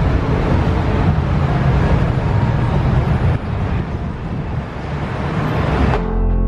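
Road traffic noise: a steady low rumble of cars that changes to music near the end.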